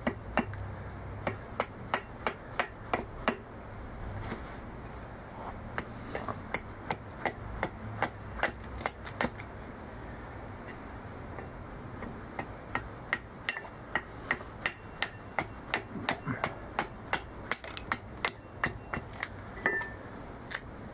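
Small carving axe chopping a cherry plum spoon blank held on a chopping block: a run of quick, sharp strokes, about two to three a second, with a pause of a few seconds about halfway.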